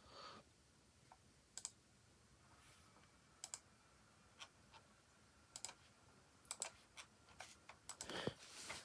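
Faint, scattered computer clicks, single and in quick pairs, coming closer together near the end, as pages are clicked through on a computer.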